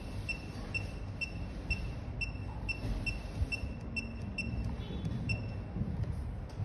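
An even series of short, high electronic beeps, a little over two a second, over a low background rumble.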